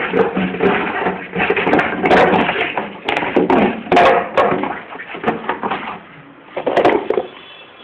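Plastic bottle crackling and knocking against a concrete floor as a puppy bites and pushes it around, in irregular loud bursts that die down near the end.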